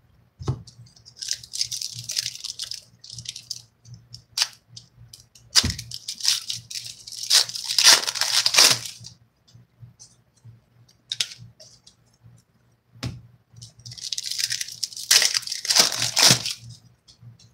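Foil trading-card pack wrappers being torn open and crinkled by hand, in three long bursts of crackling, with a few sharp clicks as cards are handled in between.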